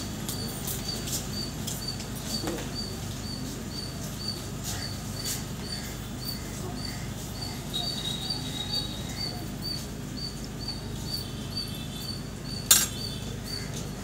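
Outdoor background noise with a short, high chirp repeating evenly about three times a second, a few light clinks, and one loud clack near the end.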